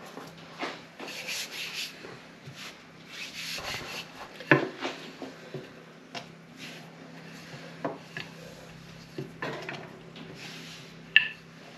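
Hands rubbing and pressing flatbread dough on a floured worktop, with a wooden rolling pin rubbing and knocking on the surface. There are soft irregular swishes and a few sharp knocks, the loudest about four and a half seconds in and again near the end.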